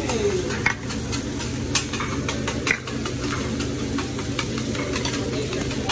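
Hibachi chef's metal spatulas clicking and scraping on a hot griddle as fried rice sizzles, with irregular sharp clacks over a steady low hum.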